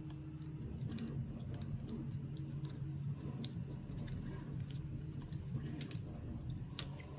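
Light clicks and taps of small plastic RC-truck parts being handled and pushed together as suspension links are fitted into a plastic chassis piece, over a steady low hum.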